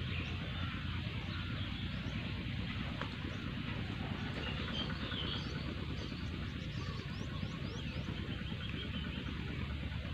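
Small birds chirping in scattered short, high calls over a steady low outdoor rumble.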